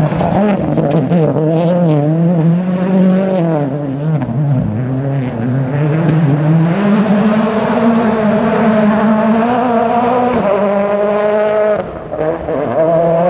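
Ford Fiesta RS WRC rally car's turbocharged four-cylinder engine revving hard on gravel. Its pitch repeatedly climbs and drops with the gear changes as it accelerates away, and it grows quieter about twelve seconds in.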